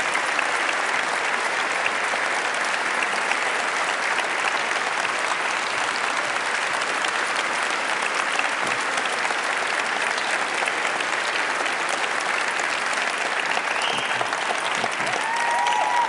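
Large audience applauding steadily in a big auditorium, with a brief whoop or call near the end.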